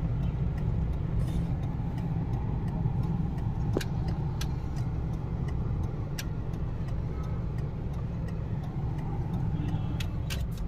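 A vehicle's engine and road noise heard from inside the cabin while driving slowly: a steady low rumble, with a few short clicks along the way.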